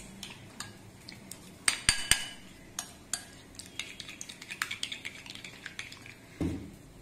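Steel spoon stirring thick curd-and-spice marinade in a glass bowl, scraping and clinking against the glass, with a cluster of louder clinks about two seconds in. A dull thump near the end.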